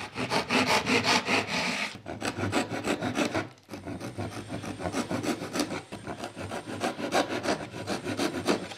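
Hand sawing of a thin softwood lattice bar with a single-edged pull saw, cutting at an angle in a plywood sawing guide. The strokes come rapidly and are loudest in the first two seconds, with two brief pauses, then carry on steadily a little quieter.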